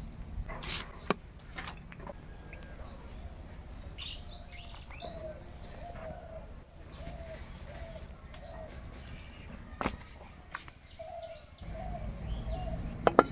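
Birds chirping, with a dove cooing in a run of short repeated notes, over a steady low rumble. A few sharp clicks near the start are a blade cutting shallots.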